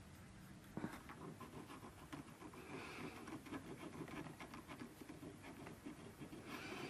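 Fine hand file drawn along the edge of a small watch bridge, bevelling it by hand (anglage): a faint, irregular scratching that starts with a light click about a second in.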